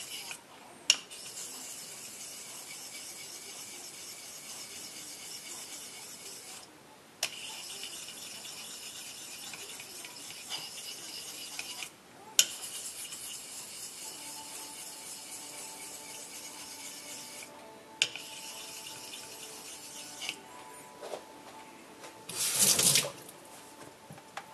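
Straight razor being honed on a wet 2000-grit synthetic whetstone: steel rubbing on stone through slurry, a steady gritty hiss in long runs broken by short pauses and a few light clicks. The honing stops about 20 seconds in, and a brief louder scrape or knock comes near the end.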